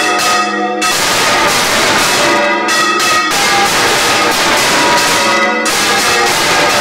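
Church tower bells rung by hand, swung on counterweighted yokes: loud, rapid overlapping clangs with long ringing tones, dropping away briefly a few times before the strokes resume.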